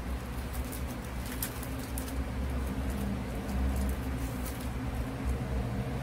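Light paper rustling as a sticky note is peeled off its pad and handled, over a steady low hum.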